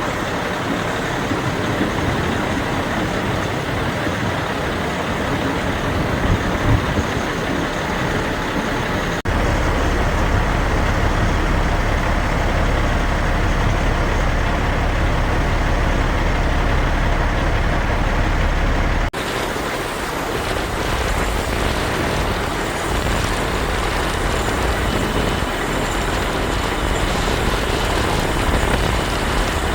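Heavy trucks running, a steady engine and road noise in three spliced clips that change abruptly about 9 and 19 seconds in; the middle stretch has a deep, heavy rumble.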